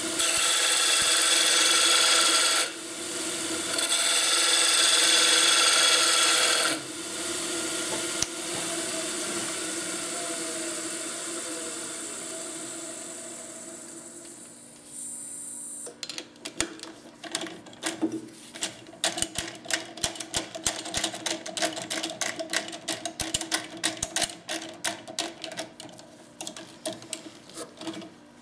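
Wood lathe spinning an elm blank while a steel turning tool cuts it, a loud hiss of cutting in two stretches early on over the lathe's steady hum. The hum carries on after the cutting stops, its pitch sinking. From about halfway, quieter rapid irregular clicking and tapping.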